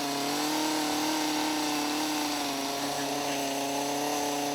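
Power tool running steadily at a constant speed, a continuous even-pitched hum with a slight waver.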